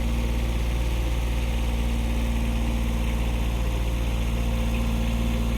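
Engine running steadily at one speed, powering an auger that drills pilot holes in a rocky gravel driveway.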